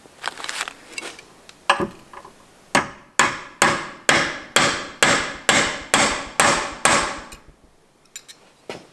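Steel hammer tapping on a Ford Model A distributor shaft braced against a bench vise, driving the ring washer tight onto the shaft to take out its end play. It strikes about eleven blows, roughly two a second, each ringing briefly, after a few light knocks as the part is positioned.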